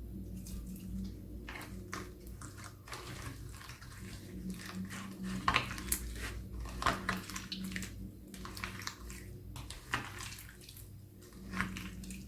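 Hands squeezing and kneading a squishy antistress toy full of water beads, giving irregular wet crackling, clicking and squelching.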